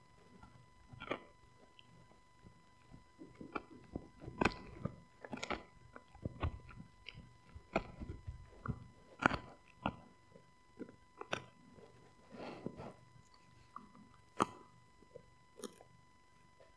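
Husky gnawing a rawhide-style chew bone: irregular crunches and clicks of teeth on the chew, with short pauses between bites.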